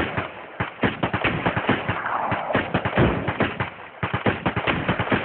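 Rapid, irregular gunfire, sharp bangs coming several a second in a dense run.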